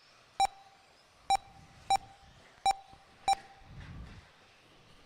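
RC race lap-timing system beeping as cars cross the transponder loop: five short single beeps at uneven intervals.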